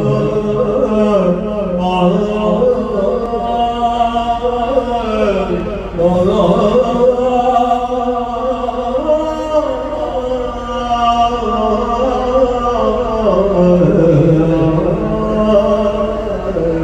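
A man singing into a microphone in slow, drawn-out phrases, holding long notes that glide from one pitch to the next, with short breaks between phrases.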